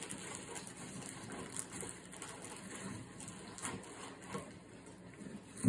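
Faint, irregular scraping and rustling of a fillet knife cutting a white bass fillet away from the ribs and skin on a plastic cutting board, with a sharp knock right at the end.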